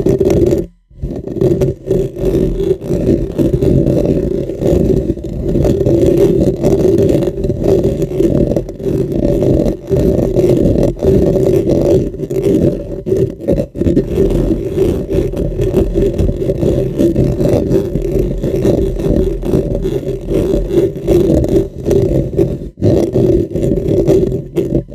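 Fingernails scratching and rubbing a microphone's foam windscreen right against the capsule: a dense, muffled, bass-heavy scratching, nearly unbroken, with a short break about a second in.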